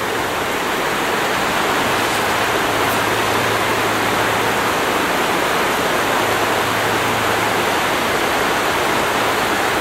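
Shallow, rocky stream flowing: a steady, unbroken rush of water.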